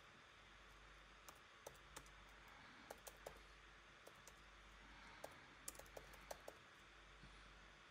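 Faint keystrokes on a computer keyboard as a short command is typed: about a dozen separate, irregularly spaced clicks over a low steady hum and hiss.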